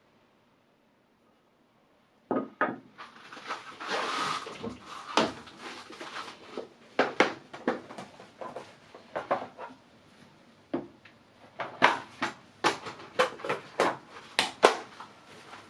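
Irregular clicks and knocks of hard parts being handled and set down, starting after about two seconds of silence, with a brief scraping rustle about four seconds in.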